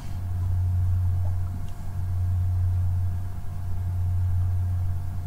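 A steady low hum, with a faint thin steady tone above it.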